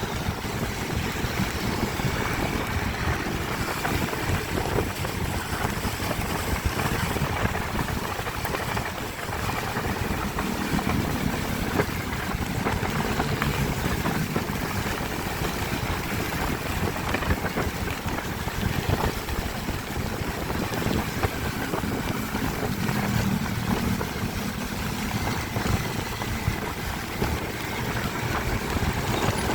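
Steady road noise from riding a vehicle along a rain-wet road: wind rushing over the microphone, with tyre hiss and a motorbike engine running underneath.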